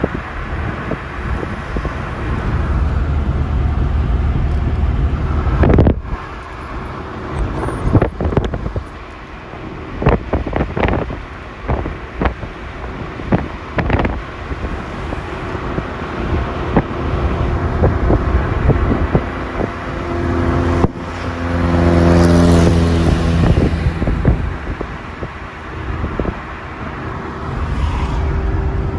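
Road noise from a vehicle travelling on a motorway: a steady low rumble with wind flapping on the microphone, and a run of sharp knocks and clicks in the middle. About three-quarters of the way through, a louder engine hum with a few steady pitches swells and fades, like a vehicle passing close by.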